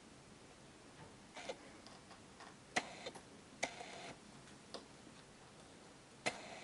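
Small plastic line-tensioner bracket being pressed and fitted onto a PVC window frame by hand: a few sharp plastic clicks about a second apart, with faint handling rustle between them.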